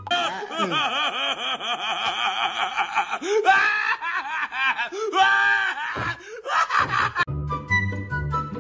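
Homer Simpson's cartoon laugh: a long, loud run of rapid 'ha-ha-ha' laughter with two short breaks. It stops about seven seconds in, and background music with a steady beat carries on.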